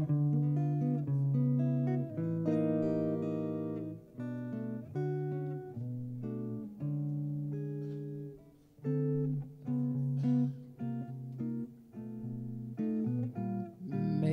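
Archtop electric jazz guitar played solo, plucked chords and single-note lines ringing out, with a brief pause about eight and a half seconds in.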